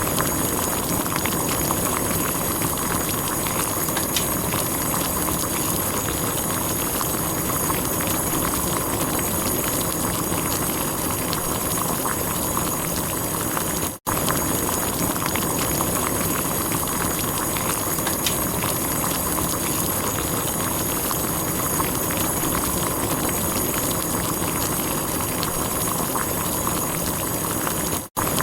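Water at a steady boil, a dense bubbling with many small pops. It cuts out for an instant about halfway through and again near the end.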